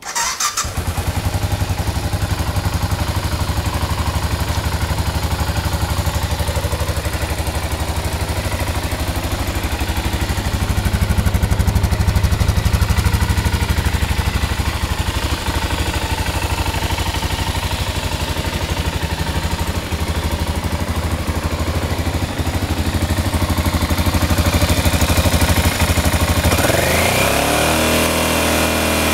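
BMW F 650 Typ 169 single-cylinder motorcycle engine starting and then running steadily, with a few light swells of throttle and a rise in revs near the end. The exhaust header leaks at its joint with the connecting pipe, according to the owner.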